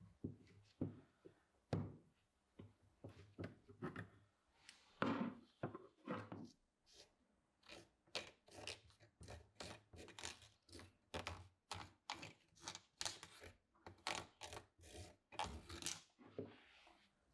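Close handling noises on a knife sharpener's parts: light clicks and knocks as pliers seat a small pinion gear in the housing, then a run of short, sticky scrapes, about two or three a second, as a wooden stick daubs grease onto the teeth of the internal ring gear.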